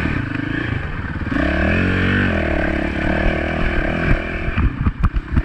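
Honda dirt bike engine running on the throttle, getting louder about a second in, its pitch rising and falling as the rider rolls the throttle on and off. A few sharp knocks come near the end.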